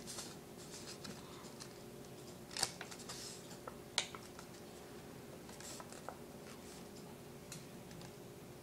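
Sheet of paper handled and folded by hand: faint rustling and creasing, with two sharper crackles about a third and halfway through.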